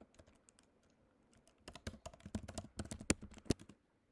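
Typing on a computer keyboard: a few faint keystrokes, then a quick run of louder key presses from just under two seconds in, as a short command is typed.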